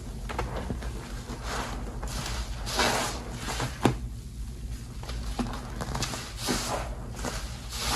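Hands squeezing and kneading a soaked sponge in a basin of thick soap suds: repeated wet squelches and squishes of foam, with one sharp click about four seconds in.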